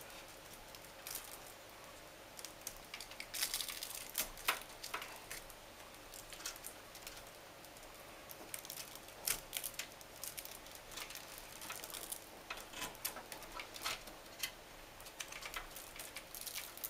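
Cables and a Velcro cable tie being handled and fastened inside a PC case: scattered rustles, scrapes and small clicks, with a busier cluster about three to five seconds in and again near the end.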